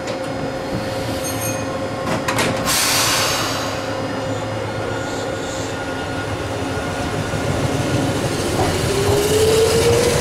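Eizan Electric Railway 800-series electric train departing a station platform. About two seconds in there is a short clatter of door thumps, then a hiss of air. From about eight seconds in the motors whine, rising steadily in pitch as the train picks up speed.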